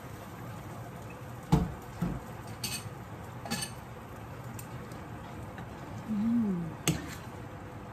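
A few sharp knocks and clinks of a utensil against a frying pan as drained penne is stirred into a hot cream sauce, over a steady low hiss of the sauce simmering. A short hummed voice sound comes about six seconds in.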